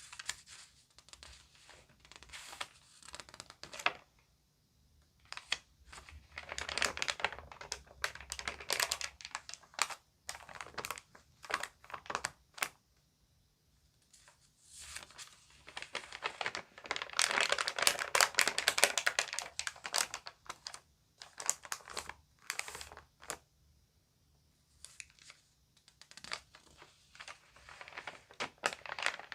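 Magazine pages being crinkled and turned by hand, in irregular flurries of rustling and crackling with short quiet pauses between them; the longest, loudest flurry comes a little past the middle.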